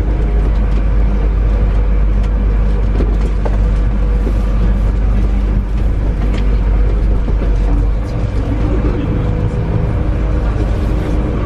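Inside a moving apron bus: its engine gives a steady deep rumble with road noise and light rattles from the cabin. The rumble eases a little about eight seconds in as the bus slows into a turn.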